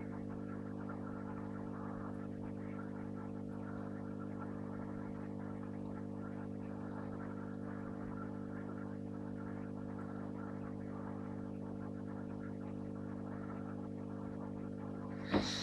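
Steady electrical hum of running aquarium equipment, even and unchanging, with one short sharp click near the end.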